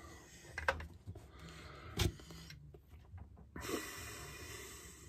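Handling noises while a rubber grommet is worked into a chainsaw fuel tank: a sharp click, then a louder knock about two seconds in, followed by a breathy hiss from about three and a half seconds that fades near the end.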